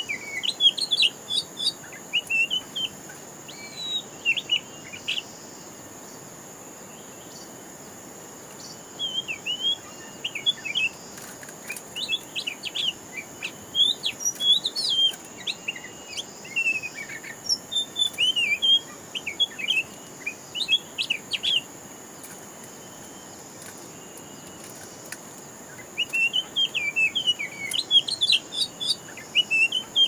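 Oriental magpie-robins singing: bouts of rapid, varied whistled phrases, twice falling quiet for a few seconds, over a steady high whine.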